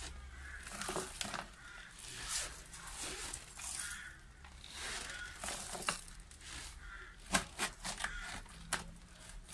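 Thin plastic bottle crinkling and crackling as a hand presses potting soil and onion bulbs down inside it, with the soil rustling; sharper crackles come in the second half.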